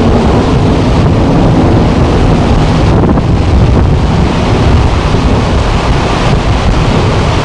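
Steady, loud rushing noise, heaviest in the low end, with no speech.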